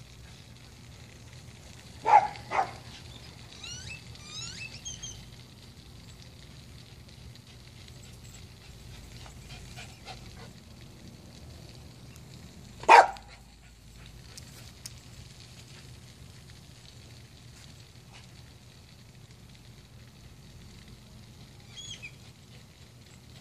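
A dog barking: two quick barks about two seconds in and one louder bark near the middle, over a steady low hum, with faint high chirps between.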